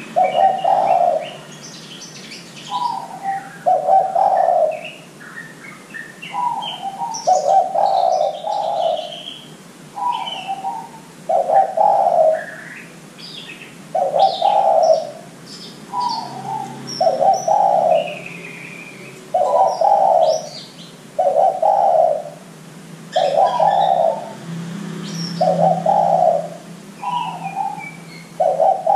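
Spotted dove (derkuku) cooing: a phrase of a short higher note followed by a longer lower one, repeated roughly every two seconds. Small birds chirp faintly in the background.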